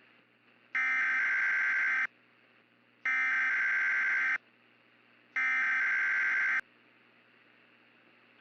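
Emergency Alert System SAME digital data bursts: three identical raspy electronic buzzes, each about a second and a half long, with short gaps between them. Coming right after the warning text, they are the End of Message code that closes the alert.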